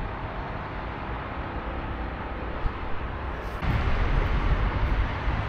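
Steady rumble of a moving vehicle, which gets suddenly louder and fuller about two-thirds of the way through.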